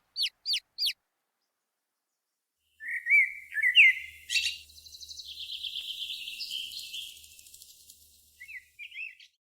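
Pet bird calling: four quick falling chirps, then after a pause a chattering warble that runs into a long buzzy, rattling stretch, ending in a few short chirps.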